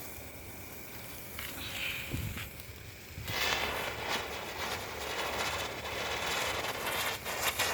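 Elephant-brand lotus wheel firework catching about three seconds in and then fizzing with a steady hiss, broken by a few sharp crackles.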